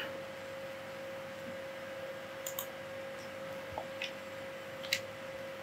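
A faint, steady high-pitched electrical whine in the recording, with a few soft computer-mouse clicks about two and a half seconds in and again near the end.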